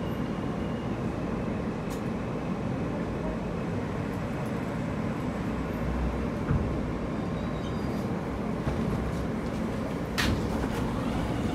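Inside an R160A-2 New York subway car standing at a station with its doors open: a steady low rumble of the car and station, with one sharp knock about ten seconds in.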